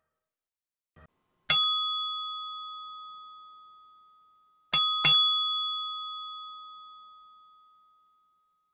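A small bell sound effect: one ding, then a quick double ding about three seconds later, each ringing out over a couple of seconds.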